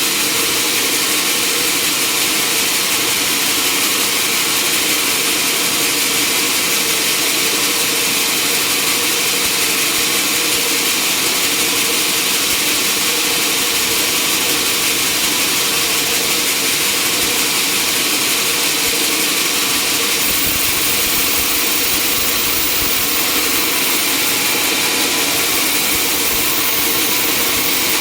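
Sawmill machinery running steadily, a loud continuous mechanical noise with a hissing top and a faint steady hum. A deeper rumble joins about twenty seconds in.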